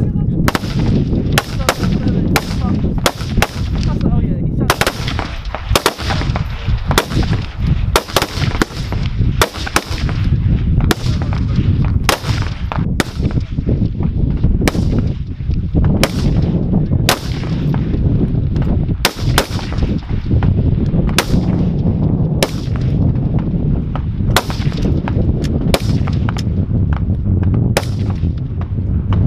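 CZ BREN 2 assault rifles firing single shots, irregularly spaced at about one to two a second, each sharp crack trailing off in a short echo, over a steady low rumble.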